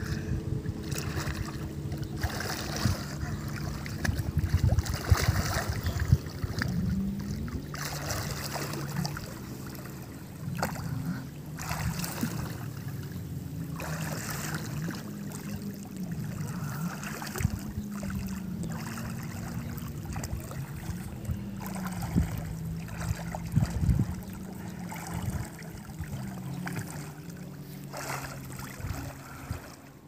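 Water splashing and sloshing as a person swims in open water, in irregular strokes every second or two, over a steady low drone.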